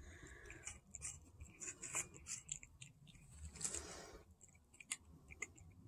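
Faint chewing and small crunching clicks of a feral tuxedo cat eating, scattered irregularly.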